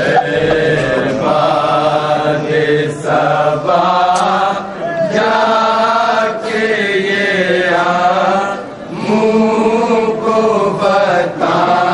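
Men chanting a nauha, a Shia mourning lament in Urdu, sung without instruments in long phrases with short breaks between them.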